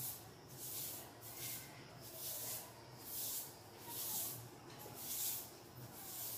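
A broom sweeping a concrete floor: rhythmic swishing strokes, about one a second.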